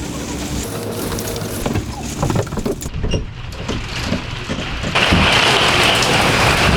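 Windstorm buffeting a 5th-wheel RV: a steady rumble of wind with scattered knocks and rattles. About five seconds in, a loud hiss of wind-driven rain comes on suddenly.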